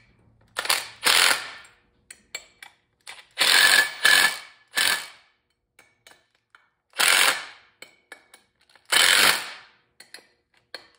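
Cordless impact driver running in short bursts, about seven in all, hammering the bolts of a Polar-style secondary clutch snug one after another so the parts pull in evenly.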